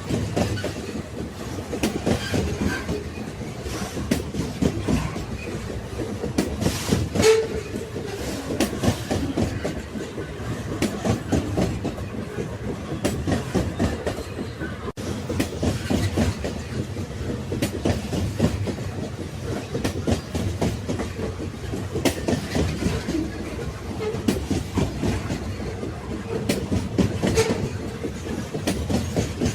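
Railway carriages rolling along the track: a steady rumble of wheels on rails, with frequent clicks and knocks from the wheels and couplings, the familiar clickety-clack of a moving train.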